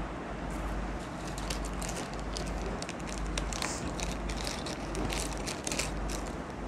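Rustling and many small clicks as earrings are picked through and handled out of sight, over a steady low hum.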